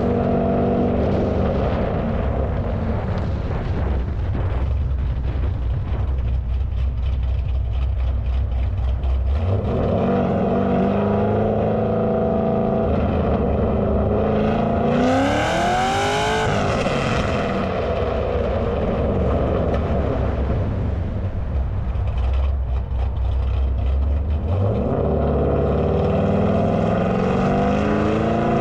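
Cammed LS3 V8 exhaust of a Holden Commodore at highway speed, with wind rush. It holds a low steady drone, then the revs climb about ten seconds in, sweep sharply upward under hard acceleration around the middle, settle, and climb again near the end.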